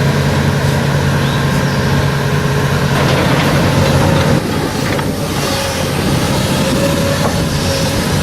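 A heavy engine runs steadily, with a few knocks and clatters mixed in; about four seconds in its note drops and gets quieter.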